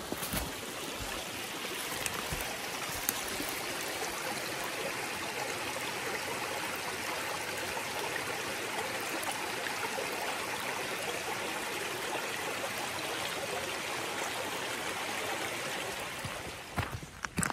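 Shallow woodland stream running over stones and small riffles: a steady, even rush of water. A few short knocks come near the end.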